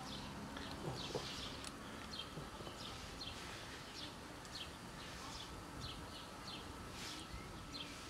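Kittens and a cat crunching dry kibble from a plastic tub: many short, irregular crunches, several a second.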